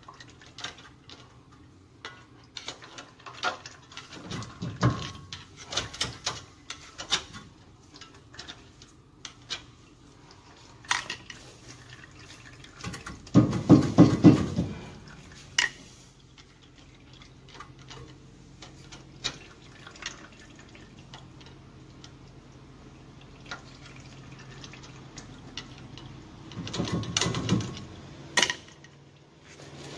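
Scattered metallic clinks and knocks of a school bus's rear wheel hub and its hardware being handled and worked by hand on the spindle, with two longer bouts of rattling and scraping as the hub is wiggled, one about halfway through and one near the end.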